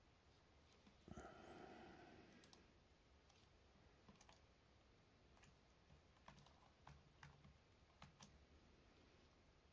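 Faint, scattered clicks of a computer keyboard and mouse as entries are typed and clicked, with one brief louder sound about a second in.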